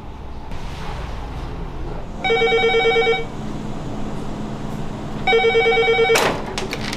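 Telephone ringing twice, a trilling electronic ring about a second long each time, about three seconds apart.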